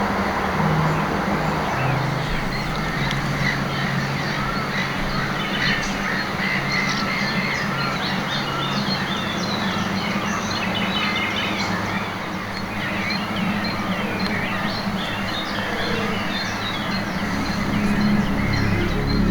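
Many birds calling and singing at once, with quick, busy chirps, over a steady rush of wind noise. Low, sustained background music notes change pitch a few times underneath.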